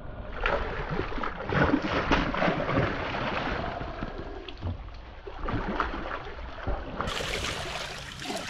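Water splashing irregularly as a hooked pink snapper thrashes at the surface beside the boat while being reeled in, then is scooped into a landing net.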